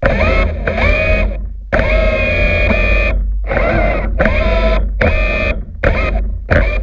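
BlueROV2 thrusters whining through the GoPro housing, in spurts that start and stop abruptly several times. The pitch glides up as each spurt starts and holds steady while the thrusters run at constant power.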